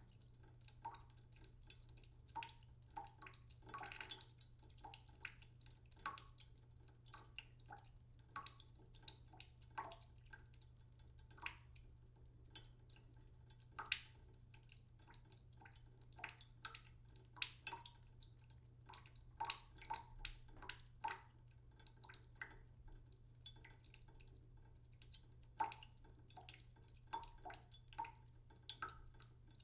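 Water dripping slowly from a tap into a cooking pot in a sink: faint, irregular plinking drops, several a second, each with a short pitched ring. A steady low hum runs underneath.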